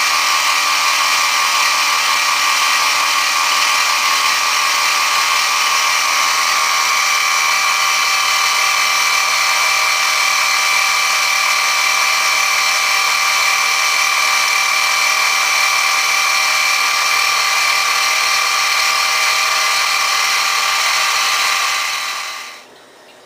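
Sieg X2 mini mill's gear-driven spindle running steadily as the CNC machine mills aluminium: a constant mechanical whine made of several steady tones over a hiss. It winds down and stops about a second before the end.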